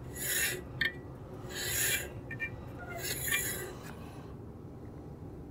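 Bandsaw turned by hand: three rasping scrapes about a second and a half apart, with a short click between the first two, as the wheel and blade are spun to check where the blade runs. The scraping stops about four seconds in, leaving a faint low hum.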